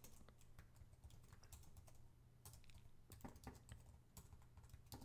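Faint typing on a computer keyboard: a quick, irregular run of key clicks over a low steady hum.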